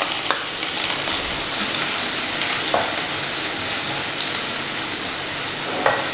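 Sliced onions and ginger sizzling in hot coconut oil as they are stirred and sautéed with a wooden spatula. A steady frying hiss, with a few light taps of the spatula against the pan.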